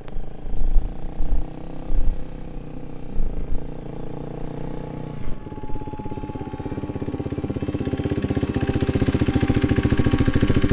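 KTM 390 Duke's single-cylinder engine running through an aftermarket KO Lightning exhaust, with low gusts of wind on the microphone. About halfway through, music with a fast pulsing beat fades in and grows steadily louder.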